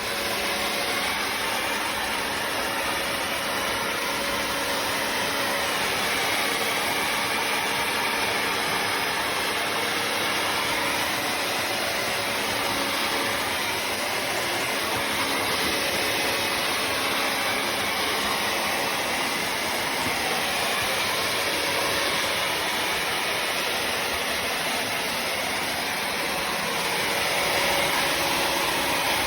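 Bissell CrossWave HydroSteam Pet wet-dry vacuum mop running steadily as it mops and sucks up the floor, a steady motor whine over rushing air, slightly louder near the end.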